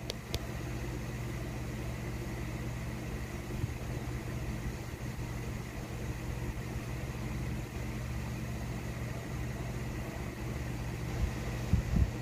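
Domestic cat purring steadily right against the microphone, a continuous low rumble. A few soft handling thumps come near the end.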